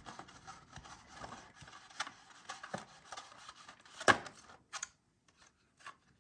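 Irregular rubbing and scraping with scattered clicks and one sharp knock about four seconds in, thinning to a few separate clicks near the end.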